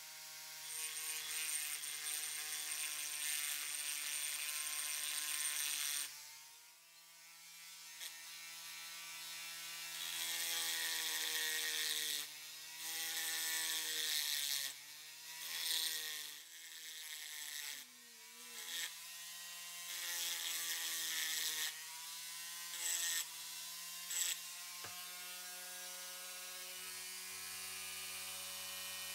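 Handheld rotary tool with a diamond burr grinding the edge of a metal casting. The motor whines steadily under a hiss that comes and goes as the burr touches the metal and lifts off, and the motor's pitch dips in places as it is loaded.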